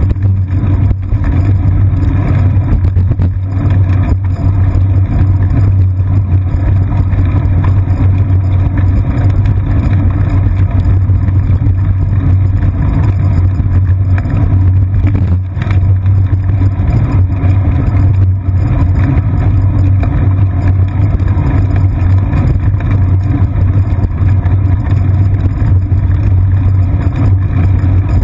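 Steady low rumble of a bicycle rolling over pavement, picked up through the seat-post-mounted GoPro Hero 2 in its housing, with ride vibration. It eases briefly twice a little past the middle.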